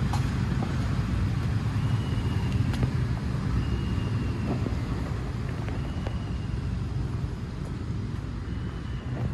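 Steady low rumble of city background noise, like distant traffic, with a few faint clicks and a short high chirp about every two seconds.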